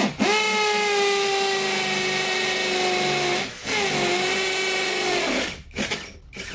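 SfunPro 16V cordless drill, set to hammer mode, boring into a wooden log with a 12 mm multi-purpose bit. The motor whine drops slowly in pitch under load, stops briefly about three and a half seconds in, and runs again for about a second and a half. A few short trigger blips come near the end.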